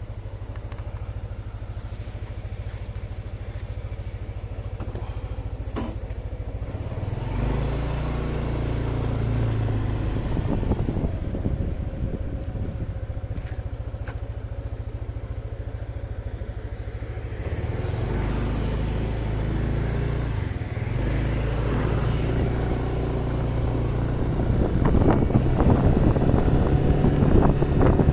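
Motorcycle engine running steadily, picking up speed about a quarter of the way in and again past the middle, with rushing noise building toward the end.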